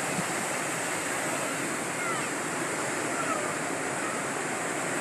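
Steady rush of sea surf, waves breaking and washing continuously.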